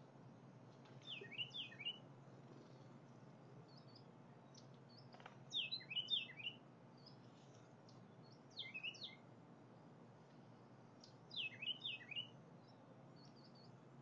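A songbird singing four short phrases of quick, high notes a few seconds apart, with faint chips in between, over a low steady hum.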